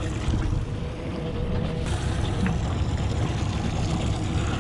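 Boat motor running steadily with a low, even drone and a faint steady hum over it.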